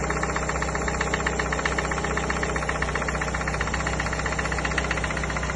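Car engine running with a rapid, even knocking from the oil pan area, a sign that something in the engine's bottom end is wrong.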